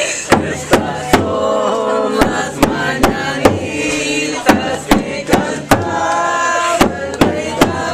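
A group of restaurant staff chanting a birthday song in unison, with sharp hits keeping a steady beat about two or three times a second.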